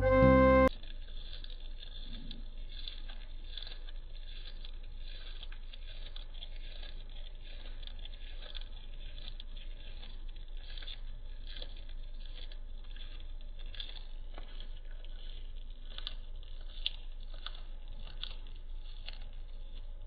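A rabbit chewing fresh grass blades: a rapid, steady crunching with small tearing sounds as the blades are bitten through. A piece of music cuts off under a second in.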